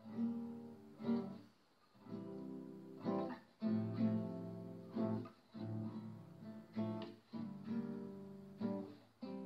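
Background music of strummed acoustic guitar chords, restruck about once a second and left to ring between strums.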